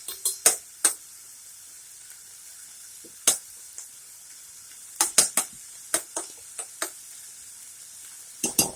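Chopped onions sizzling in a hot pan, a steady faint hiss, with a utensil scraping and stirring them in short bursts of strokes. The onions are at the softening stage, going translucent without browning.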